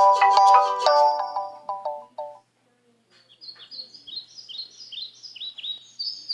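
Phone ringtones playing one after another. A plinking, marimba-like melody fades out over the first two seconds. After a short gap, a high birdsong-like tone of quick chirps, each falling in pitch, begins about three seconds in.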